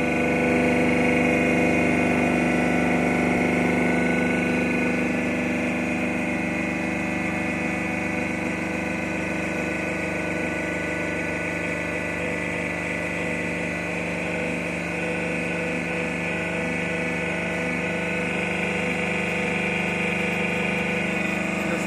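Hydraulic drum press running: the 5000-watt electric motor and pump of its power unit give a steady hum while the ram drives the press plate down onto a steel drum. The sound eases slightly in level a few seconds in.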